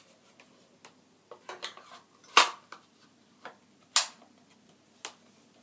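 Revo K200 over-and-under shotgun being assembled: a string of sharp metallic clicks and clacks as its parts are fitted and locked together, the loudest about two and a half and four seconds in.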